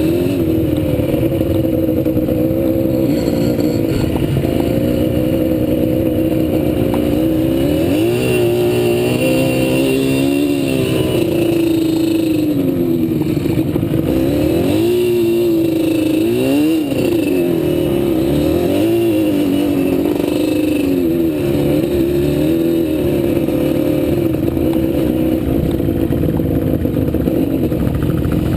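ATV engine running under way, its pitch rising and falling several times as the throttle is opened and eased off, with rattling over rough ground.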